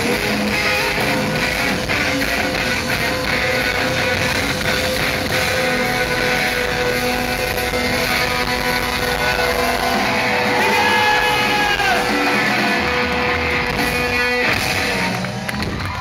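Rock band playing live at full volume, with electric guitars and drums, heard from within the crowd in a large hall. A sustained note runs under the music until about three-quarters of the way through.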